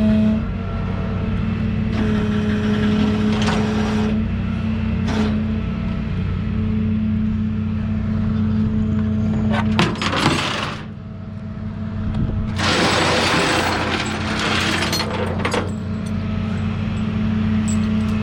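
A vehicle engine idling steadily, with a few sharp clinks and two bursts of noise about halfway through and a few seconds later.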